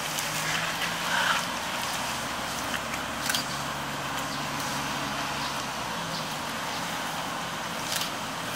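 A capybara chewing leafy branches, with a few sharp snaps, over the steady whir of electric fans.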